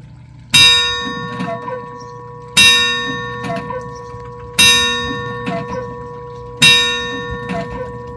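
Large bell on the giant cuckoo clock striking, four strokes about two seconds apart, each ringing out and fading before the next.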